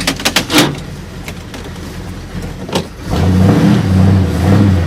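1965 Ford Galaxie engine running warm at idle, with a few sharp clicks in the first second, then revved up for nearly two seconds from about three seconds in.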